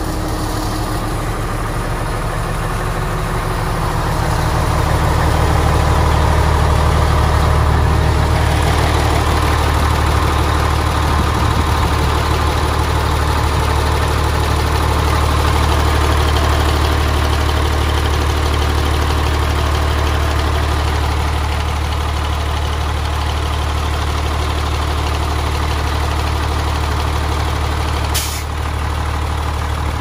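Komatsu WA500-1 wheel loader's diesel engine idling steadily with a deep hum, louder from about four seconds in as the engine compartment comes close. A short hiss sounds near the end.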